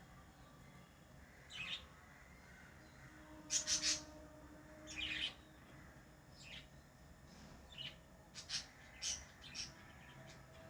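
Pet lovebirds chirping: short, sharp, high calls at irregular intervals, including a quick run of three about three and a half seconds in.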